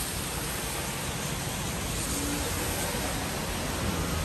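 Steady rain falling on banana plants and trees, with one short low call from a banded bullfrog about two seconds in.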